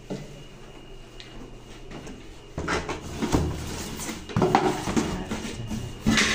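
A cardboard box and the grey plastic toilet drain adapter inside it being handled, its flaps pulled open. Quiet at first, then irregular rustling and knocking from a few seconds in, with a sharper knock near the end.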